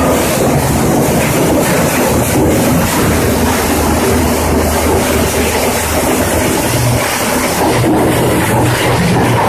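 Scrap metal crusher running: a dense, continuous clatter of metal being broken up over a steady low drone from the machine.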